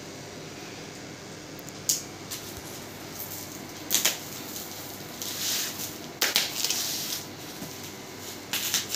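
Unboxing noises from a cardboard box and foam packing: packing tape slit with a blade, the cardboard and foam handled, with four sharp knocks spread through and a rustling hiss about five seconds in.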